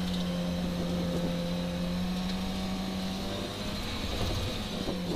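Volvo 940 rally car's engine pulling at steady revs under acceleration, heard from inside the cabin. Its note weakens about three and a half seconds in.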